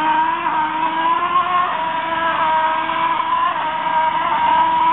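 An engine running steadily, its pitch shifting slightly up and down every second or two.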